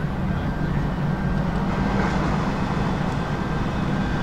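Engine of heavy ground equipment running steadily, a low, even drone with no change in speed.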